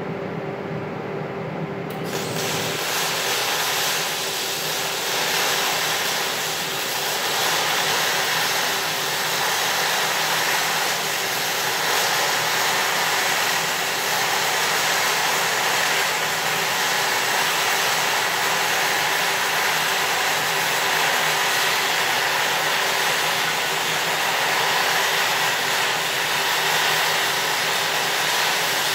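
MIG welding arc laying a bead on a steel I-beam: a loud, steady crackling hiss that strikes up suddenly about two seconds in and runs on unbroken, over a faint steady hum.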